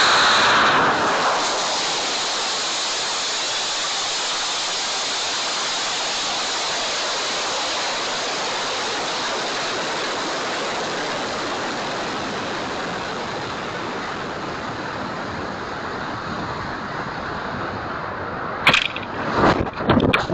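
High-power model rocket heard from its own onboard camera: the motor ignites with a loud rush, and a steady rushing roar of exhaust and air streaming past the airframe carries on through the climb, slowly easing. About 18.5 seconds in, a sharp crack and then choppy buffeting mark the ejection charge firing and the recovery gear deploying.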